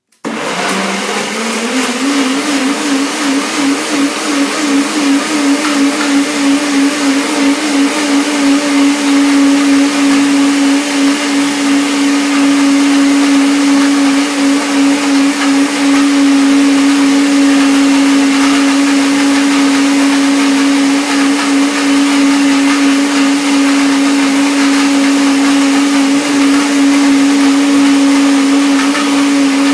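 Countertop jug blender running at full speed on a smoothie of arugula, blueberries, avocado, lemon and dates. It starts suddenly and rises in pitch as it spins up. The sound wavers for the first ten seconds or so, then settles into a steady, loud motor drone.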